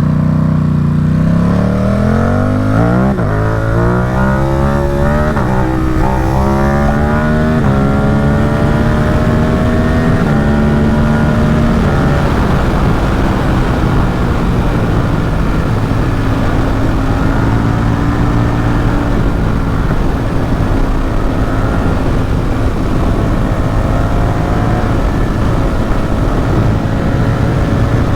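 Ducati Supersport 950 S's 937 cc L-twin, through an aftermarket Competition Werkes exhaust, revving hard under acceleration. It shifts up about three seconds in and again about six seconds in, then settles into a steady cruise, with a slight rise in revs near the end.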